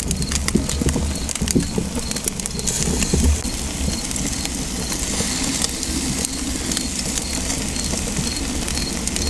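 Charcoal fire flaring up under a grill rack of whole fish: a steady low rumble of flames with scattered sharp crackles.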